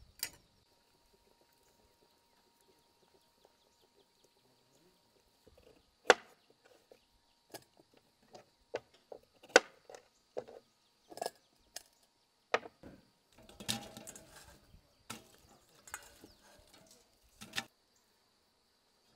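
Chef's knife chopping bell peppers and carrots on a wooden cutting board: separate sharp knocks at irregular intervals, the loudest about six and nine seconds in, with a quick run of cuts around fourteen seconds.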